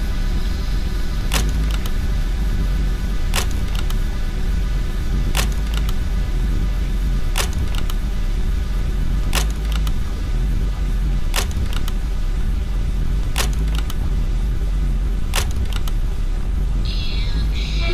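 A lamp switch clicking about every two seconds, each click trailed by fainter repeated copies of itself, over a dense low rumble. Near the end a higher tone comes in.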